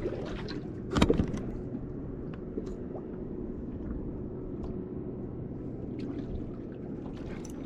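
Steady low motor hum aboard a small fishing boat, with one short knock about a second in and a few faint ticks.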